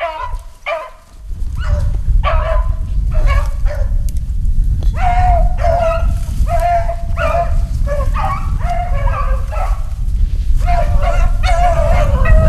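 Beagles baying, a run of short pitched yelps about two a second that grow louder and longer toward the end: rabbit hounds giving tongue as they run a rabbit. A steady low rumble sits underneath from about a second in.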